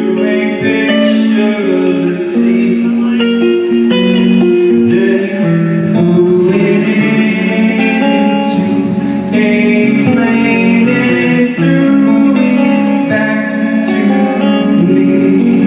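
Live band music led by guitar, a passage with no sung words, steady and loud with sustained chords.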